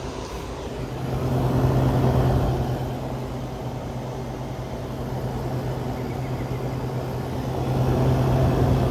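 Vintage Airtemp air conditioner running: a steady compressor hum under the rush of its fan, getting a little louder about a second and a half in and again near the end.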